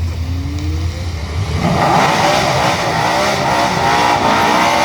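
Ford XY Falcon drag car's engine revving, first in short rising blips, then run up to high revs and held there from about two seconds in. It sounds healthy.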